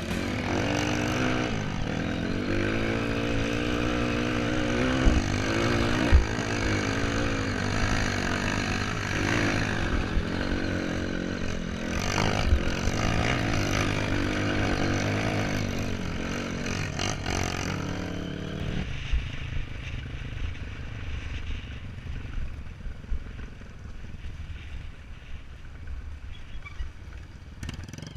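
Off-road trail motorcycle engines running and revving, the pitch rising and falling with the throttle, with clattering over rough ground. About two-thirds of the way through the engine sound drops and gets quieter.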